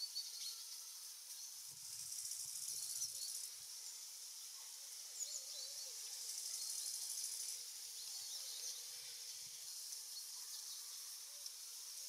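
Field ambience of a high, hissing insect chorus that swells and fades every couple of seconds, with a few faint short chirps.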